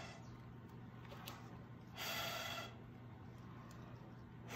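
Breath blown hard through a drinking straw straight down onto wet acrylic paint, in short puffs: one breathy rush about two seconds in lasting under a second, and another starting at the very end.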